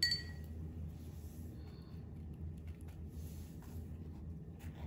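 Quiet room with a steady low hum. About at the start there is one short tap that rings briefly, and near the end a bristle brush makes faint soft strokes on the canvas.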